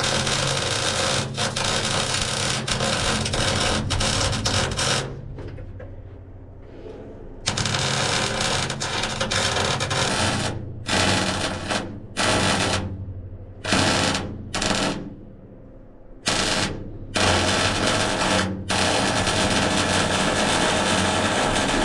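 Welding arc crackling in starts and stops: a long weld run that breaks off for a couple of seconds, then a string of short tack-like bursts, then longer runs near the end.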